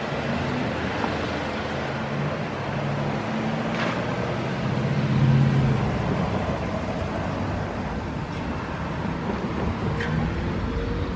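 Cars and pickup trucks driving over a railway level crossing one after another, engines and tyres swelling and fading as each passes. The loudest pass is about five seconds in.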